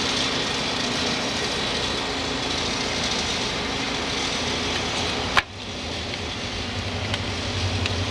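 A steady machine hum runs throughout. About five seconds in there is a single sharp click, the level dips suddenly, and a lower, steadier hum then comes forward.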